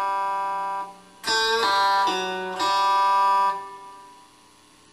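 Electric guitar played slowly, fretted notes sounded against ringing open strings. A first group of notes rings and dies away. About a second in, a quick pull-off starts a new phrase that rings on and fades out near the end.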